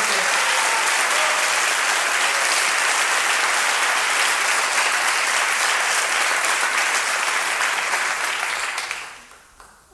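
Theatre audience applauding after a live song; the applause dies away about nine seconds in.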